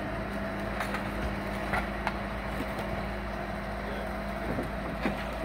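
Bobcat skid-steer loader's diesel engine running steadily while the grapple lifts demolition debris, with a few sharp knocks and clatters from the debris and grapple.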